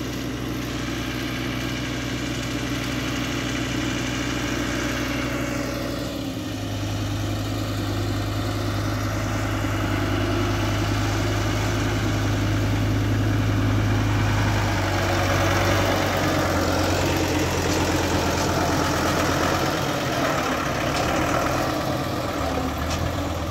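Lamborghini 95 hp tractor's diesel engine running steadily under way while carrying a round bale on its front loader, growing louder as it comes closer; its engine note changes about six seconds in.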